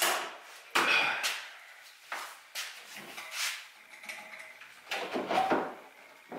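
A string of separate knocks and clunks, about six, irregularly spaced with two close together near the end, from handling at a sheet-metal powder-coating oven.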